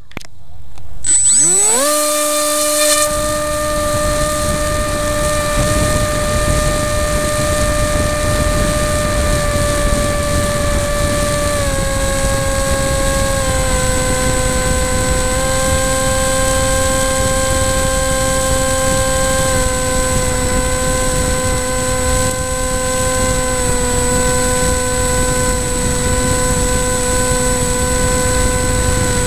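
Electric motor and propeller of an FPV radio-controlled airplane, heard through its onboard camera: the motor spins up with a fast rising whine for takeoff, then holds a steady high whine. The pitch steps down slightly about twelve seconds in and a few more times as the throttle is eased in flight.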